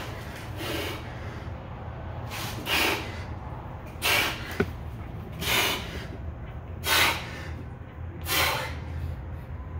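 A man's forceful breaths, six sharp puffs about one and a half seconds apart, one with each barbell bench-press rep. A single light click about halfway through, over a steady low hum.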